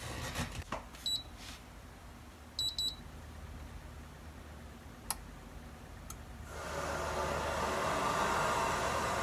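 Carrier split-type air conditioner indoor unit powering up: one short high beep, then three quick beeps, and two clicks. About six and a half seconds in, the newly installed indoor fan motor starts and its blower builds into a steady rush of air.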